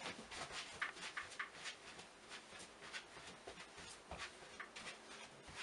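Faint, irregular scuffing and rustling, a few soft scrapes a second, from a person spinning around on the spot.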